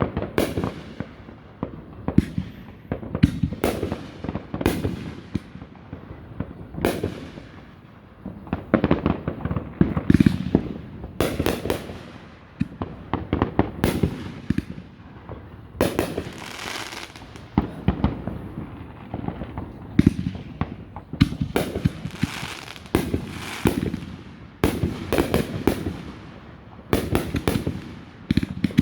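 Fireworks display: aerial shells launching and bursting in quick succession, with sharp bangs and clusters of rapid crackling cracks, and echoing booms rolling after them.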